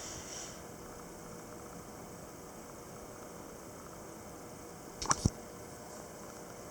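Steady low background hum and hiss, with two quick sharp clicks close together about five seconds in.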